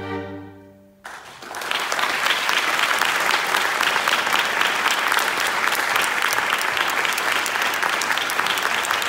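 A string quartet's final chord is held and fades away. About a second in, audience applause breaks out, swells and continues steadily.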